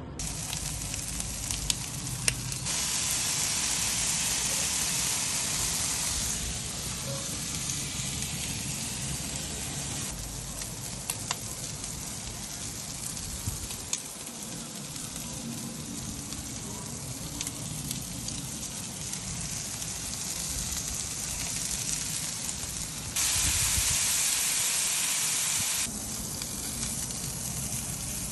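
Lamb kofta kebabs and vegetables sizzling on a hot barbecue grill, a steady frying hiss that grows louder for a few seconds twice, with a few sharp clicks.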